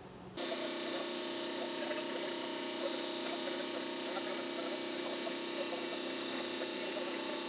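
Handheld orbital sander running steadily as it scuffs the painted steel of a Jeep Wrangler YJ windshield frame, roughening it so the urethane adhesive will grip. It makes an even motor whine with a hiss that does not change.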